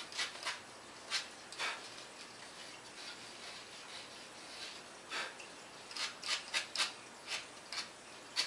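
Light scratching and scraping strokes of a hand tool cleaning a leftover tab off the edge of a foam elevator. The strokes come irregularly with pauses between them, and a quick run of them comes about six to seven seconds in.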